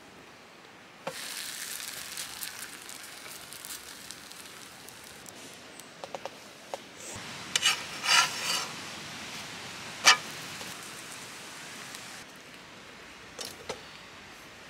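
Moringa-leaf flatbread dough sizzling on a hot cast-iron griddle, the sizzle starting suddenly about a second in. A metal spatula scrapes and clicks against the griddle near the middle, then gives one sharp knock a couple of seconds later.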